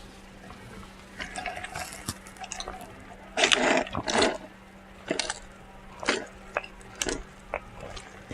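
Close-miked eating sounds: wet lip smacks and mouth clicks, with two louder wet smacks about three and a half and four seconds in.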